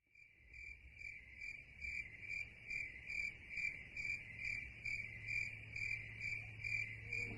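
Crickets chirping in a steady, even rhythm of about two and a half chirps a second, fading in at the start, over a low steady hum.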